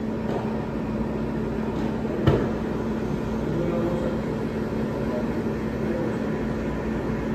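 Steady room noise of a restaurant counter with a constant low hum from equipment, and one sharp knock a little over two seconds in.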